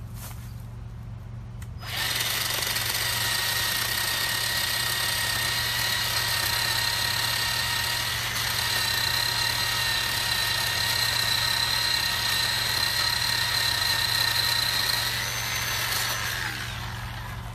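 Bauer 20V cordless electric chainsaw running at full speed with a steady high whine, cutting into a small tree trunk near the ground. It starts suddenly about two seconds in and winds down and stops near the end.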